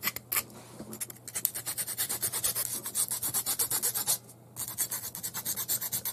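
Flat metal hand file scraping back and forth across the cut end of a short tube in quick repeated strokes, taking off the burr left by the cut. The strokes grow faster and steadier after about a second and pause briefly a little past four seconds in.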